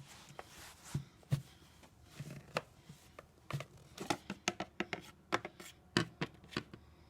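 Irregular sharp clicks and taps of objects being handled, sparse at first and coming faster in the second half.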